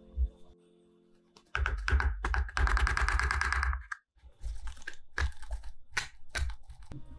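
Paperboard milk carton torn open by hand: about two seconds of dense ripping and crackling of the coated cardboard, then a string of separate sharp cracks as the seams are pulled apart. A single soft knock comes just before the tearing begins.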